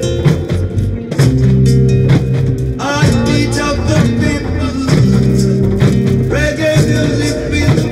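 Live acoustic reggae: strummed acoustic guitar and a hand drum over a steady low bass line, with a voice starting to sing about three seconds in.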